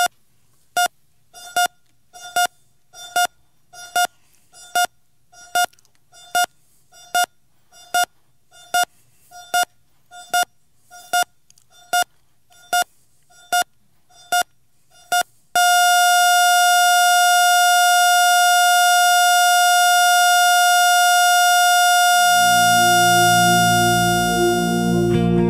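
Electronic heart monitor beeping steadily with each heartbeat, a little faster than once a second. About fifteen seconds in, it changes to one continuous flatline tone, the sign that the heart has stopped. Near the end, soft guitar music fades in under the tone and the tone cuts off.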